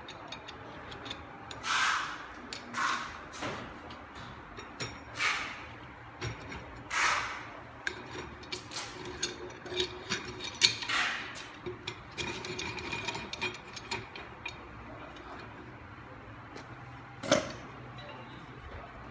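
Stainless steel tuna missiles being handled on a wooden table: irregular metal clicks, clinks and scrapes from the latch, handle and hook arms, with one sharper ringing metal clank near the end.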